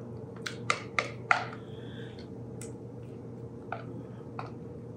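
Sharp clicks and taps of a silicone spatula knocking against a measuring cup and the rim of a metal mixing bowl as mayonnaise is scraped out: four quick ones in the first second and a half, then a few scattered taps. A steady low hum runs underneath.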